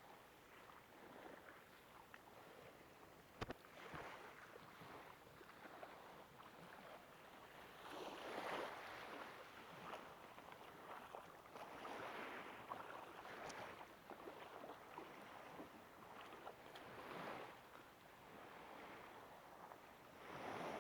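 Faint small waves washing in and out on the shore in soft, uneven swells, with one sharp click about three and a half seconds in.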